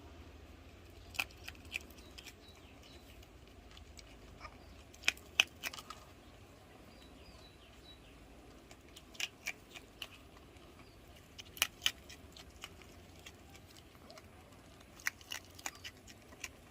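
An otter eating: sharp crunches and clicks of its teeth on food, coming in clusters of two or three a few seconds apart.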